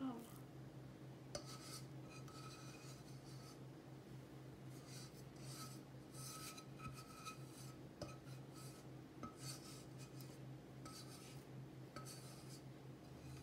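Faint, spaced-out strokes of a spatula scraping sticky cooked flour dough off a non-stick pan, about eight short rasps, over a steady low hum.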